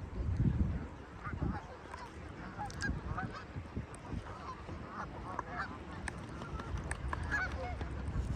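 A large flock of geese honking, many short calls overlapping throughout, with a low rumble in the first second or so.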